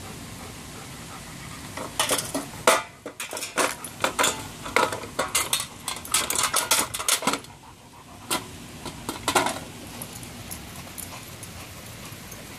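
Hard plastic toy dump truck clattering and rattling as a German shepherd paws at it and mouths it: a dense run of sharp clacks starting about two seconds in and lasting some five seconds, then a shorter run a second later.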